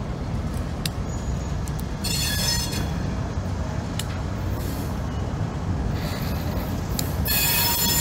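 Steel wheels of a slowly rolling freight hopper car squealing against the rail, typical of a very sharp curve, in two high-pitched spells, one about two seconds in and another starting near the end. Under it runs a steady low rumble of the moving train, with a few sharp clicks.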